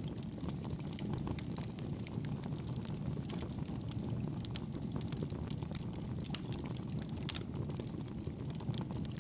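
Fire burning in a fireplace: a steady low rush of flames with frequent small, irregular crackles and pops.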